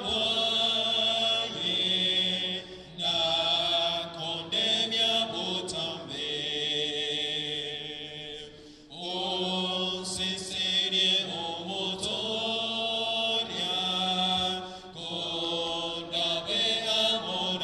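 A church congregation singing a hymn, led by voices on microphones through the PA, in long held phrases with short breaks between them.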